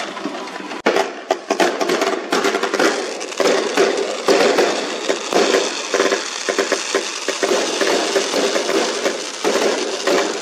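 Fireworks crackling and popping in a dense, continuous stream of small cracks, louder from about a second in.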